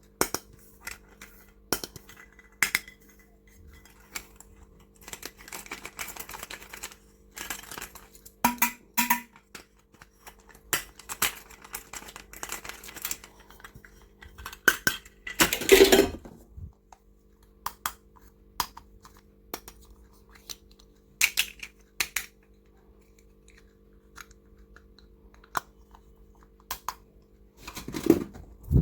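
Plastic stationery and toys being handled: scattered clicks, taps and short rustles, with a louder scraping rustle of about a second midway, over a faint steady hum.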